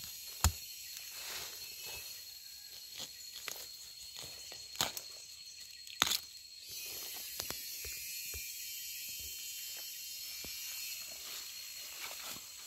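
A digging tool knocking sharply into the ground a few times among dry bamboo leaves, with the leaf litter rustling and crackling as it is worked by hand. Later, a steadier rustle of dry leaves underfoot.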